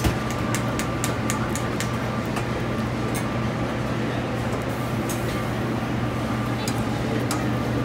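Restaurant kitchen line: a steady low drone from the ventilation hood and equipment, with frequent sharp clinks of stainless steel pans and utensils being handled at the gas range.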